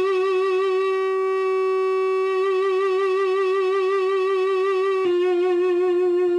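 Electric guitar played through a home-built tube amp converted from a Fender PA135 and running two 6L6 power tubes: a long held lead note with wide vibrato, then a slightly lower note picked about five seconds in and held with vibrato.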